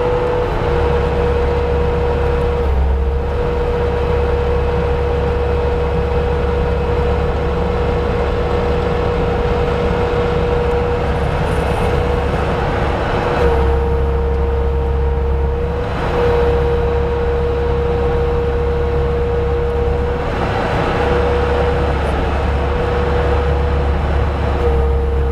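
Bobcat T300 track loader's diesel engine running at high revs, driving an SG60 hydraulic stump grinder attachment, with a steady high whine over a low drone. The whine sags briefly in pitch about 3 seconds in, again around 13 to 16 seconds, and near the end, as the engine takes load.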